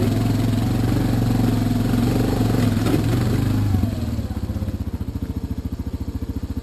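ATV engine running under throttle, then dropping about four seconds in to a lower, evenly pulsing putter as the throttle comes off.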